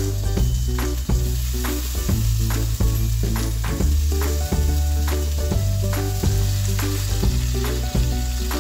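Music with a steady beat and a deep bass line, over shrimp sizzling as they fry in a pan.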